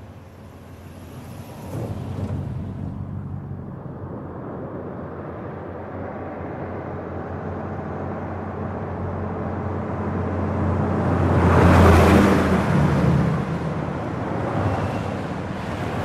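Fast traffic on a trunk road: a continuous rush of tyres and engines as vehicles pass one after another. The loudest pass is about three-quarters of the way through, with the low hum of its engine.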